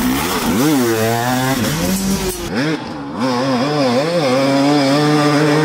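Husqvarna 300 two-stroke enduro motorcycle revving hard, its pitch rising and falling with the throttle and then holding steady at high revs near the end.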